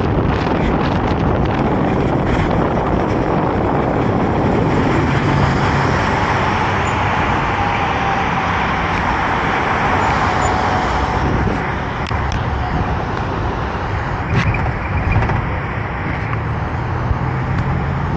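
Steady road traffic noise of cars driving on a city highway, mixed with wind rushing over the microphone; it drops slightly in level about twelve seconds in.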